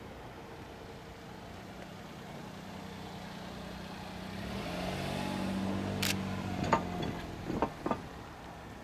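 Engine of a KiHa 120 diesel railcar heard at a distance, a low hum that swells to a peak about five to six seconds in as the railcar passes and then fades. Several sharp clacks come near the end.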